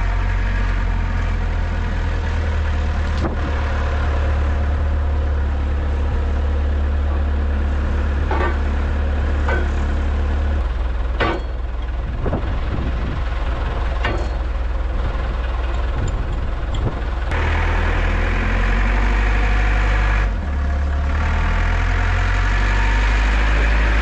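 Sanderson Teleporter 725 telehandler's diesel engine idling steadily, with a few sharp metal clanks in the middle as the pallet forks are handled. About two-thirds of the way through the engine gets louder and harsher as the machine drives off.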